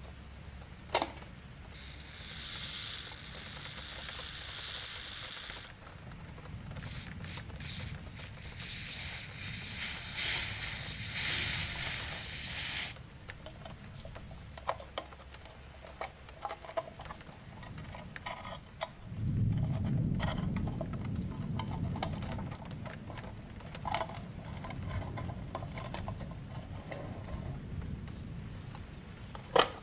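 Hand work on an old mechanical alarm clock: scattered clicks and scrapes of small metal parts, with no regular ticking. There are two stretches of hissing noise in the first half and a low rumble through much of the second half.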